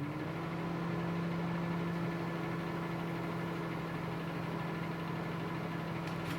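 Microwave oven running with a steady electrical hum, just switched on, with an incandescent light bulb inside it.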